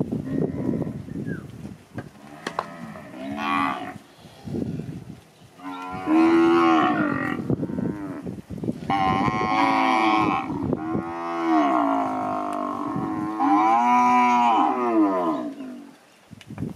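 Brahman-type heifers mooing: about five long, drawn-out moos follow one another from about three seconds in, some overlapping. In the first two seconds there is a shuffle of hoof knocks in the dirt.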